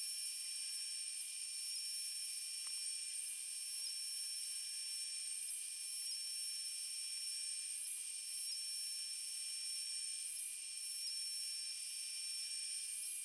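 DeWalt router on a CNC machine spinning a surfacing bit across the wasteboard: a thin, steady high-pitched whine with hiss.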